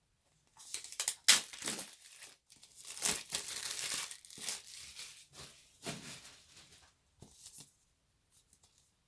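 Packaging being torn open and crinkled by hand, in irregular rustling bursts for several seconds.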